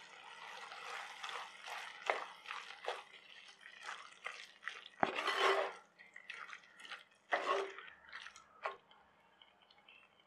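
Thick squid masala sizzling and bubbling in a pot while a spatula stirs through it. There is a constant run of small pops and crackles, with louder wet, squelching stir strokes about two, five, seven and a half and nearly nine seconds in.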